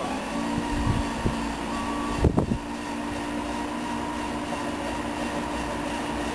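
Electric drive of a hidden trailer-floor compartment, run off a 12-volt drill battery, humming steadily as it lowers the long floor panel shut. One knock comes a little over two seconds in.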